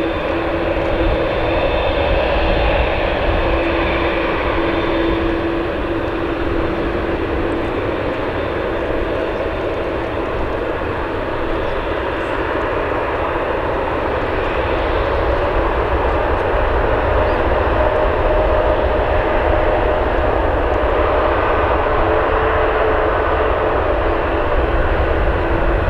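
Jet airliner's engines running loud and steady, with a few faint humming tones that drift slightly in pitch.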